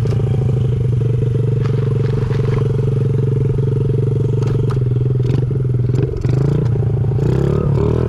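Honda CRF50's small single-cylinder four-stroke engine running steadily as the mini bike is ridden. It dips briefly about six seconds in.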